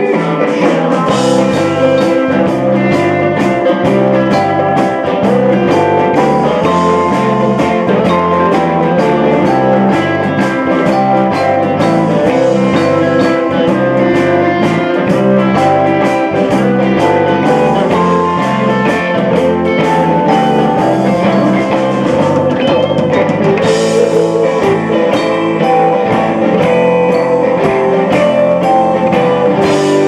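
Live rock band playing an instrumental passage: electric guitars over bass guitar and a drum kit, with steady drum and cymbal hits.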